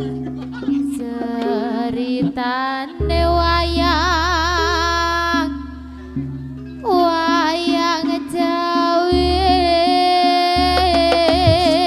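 Music: a lead melody with strong, wavering vibrato over a steady low drone and bass, with a short lull about halfway through.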